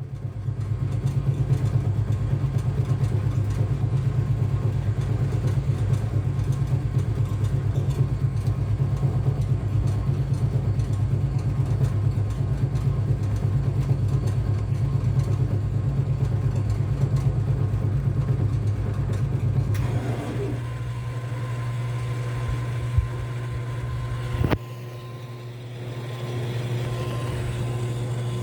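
Enxuta Euromatic washing machine running: a steady low motor hum that changes and evens out, slightly quieter, about two-thirds of the way through, followed a few seconds later by a sharp click and a brief dip in level.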